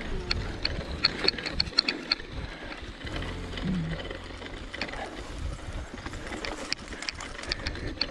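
Mountain bike rolling down a dirt trail: a low rumble from the tyres and frame over rough ground, with bursts of sharp metallic clicking from the rear freehub as the rider coasts.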